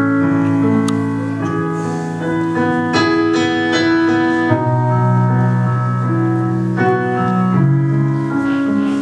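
Recorded ballad music: keyboard chords held over a steady low bass, changing every second or two, with no singing. This is the song's instrumental introduction.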